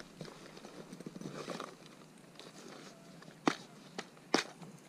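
Rustling as a clear plastic tackle box is handled at a float tube's side pouch, then two sharp plastic clicks under a second apart near the end, the tackle box's latches snapping open.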